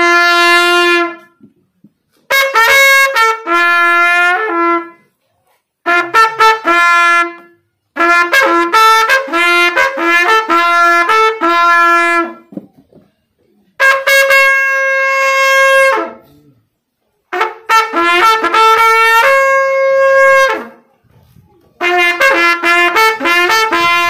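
Mao Naga long straight end-blown natural trumpet with a flared bell, blown in about seven short phrases with pauses of about a second between them. Each phrase leaps between two or three notes, some of them held longer.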